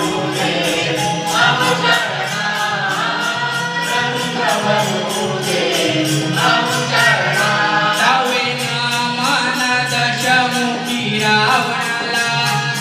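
Group of voices singing a Konkan naman song, a Marathi folk devotional song, with the melody gliding between held notes over percussion that keeps a steady beat.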